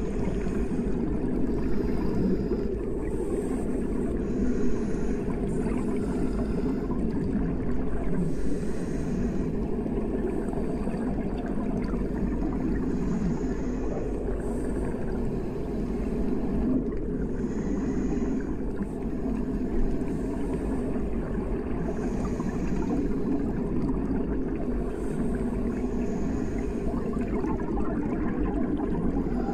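Underwater sound: a steady, muffled low rush of moving water, with faint scattered higher sounds over it.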